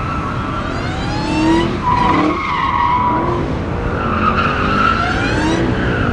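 Cars driving past one after another, engines running and revving in rising pitches, with high squealing tones that rise and fall.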